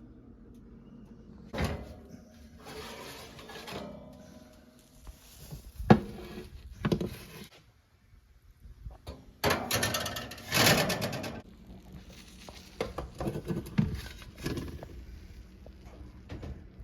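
Kitchen handling sounds: a string of separate knocks and thuds, like doors, drawers and pans being moved, with two longer stretches of clatter, one about three seconds in and a louder one a little past the middle.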